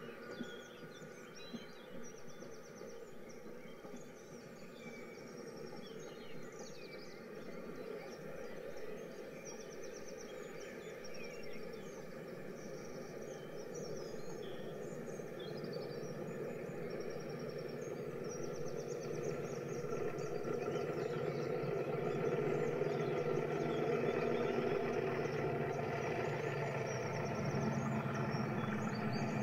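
Added railway sound effect in place of the models' own sound: birds chirping over a train's steady running rumble, which builds and grows louder through the second half.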